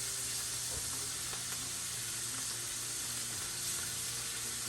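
Purple snap beans sizzling as they fry in hot oil: a steady sizzle with a few small pops.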